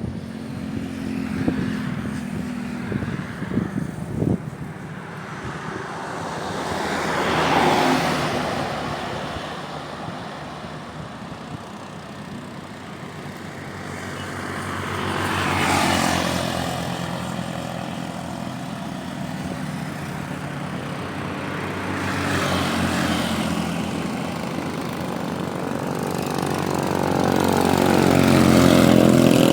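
Boat engine running steadily, swelling louder and fading back about four times.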